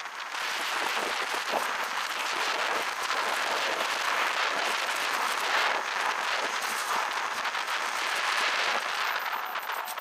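Steady rushing, crackling wind and road noise on a phone microphone carried on a moving scooter.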